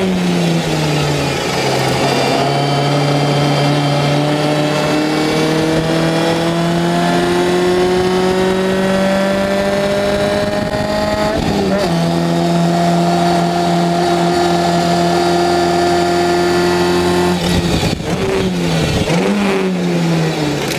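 Race car engine heard on board an open-cockpit Lotus Seven-style racer, running hard: the note falls at the start, then climbs slowly for about ten seconds under acceleration. It breaks and settles near the middle, then dips and rises sharply several times near the end, as on downshifts with throttle blips.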